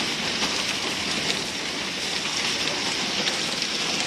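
Heavy rain and hail falling steadily, a dense hiss with many small sharp ticks from hailstones striking the ground.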